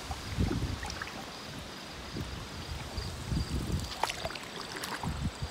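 Canoe on a river: paddle strokes and water lapping at the hull, with wind gusting on the microphone. Two sharp knocks come about four and five seconds in.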